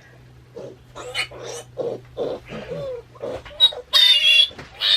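Newborn piglet giving a run of short grunts, then breaking into a loud, high-pitched squeal about four seconds in as it is held for its iron shot.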